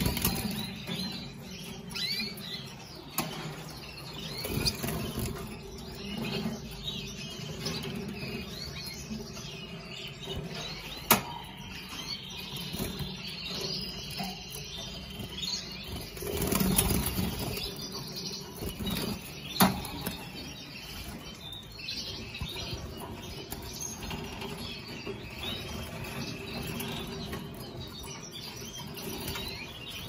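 Caged canaries fluttering and hopping between perches, with bursts of wing flapping, loudest about 16 to 18 seconds in, and short chirps throughout. A few sharp clicks stand out, the loudest about 11 and 20 seconds in.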